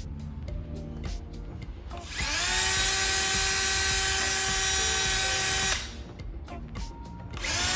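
Power drill spinning up and running steadily for about three and a half seconds, driving a screw into the wall. A second run starts near the end. Background music plays underneath.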